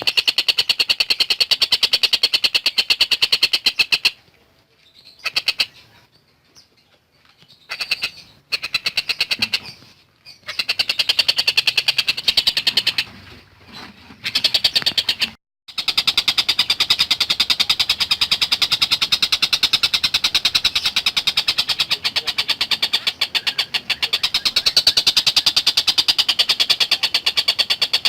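Collared kingfisher (tengkek buto) calling in long, very fast, high-pitched chattering runs of rapidly repeated notes. The runs break off a few times near the middle, then go on unbroken.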